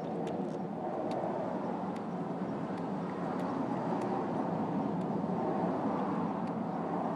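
Steady low rumble of distant road traffic, with a few faint ticks over it.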